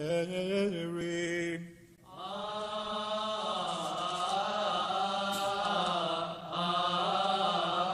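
A solo male voice chanting Coptic liturgical chant in a long, drawn-out melisma. A held note breaks off a little before two seconds in, then a longer, wavering line of ornamented chant is sung on a single vowel.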